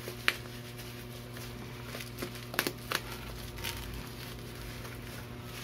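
Handling noises from a small product box: a few sharp clicks and taps, the loudest about a quarter second in and a pair near the middle, over a steady low hum.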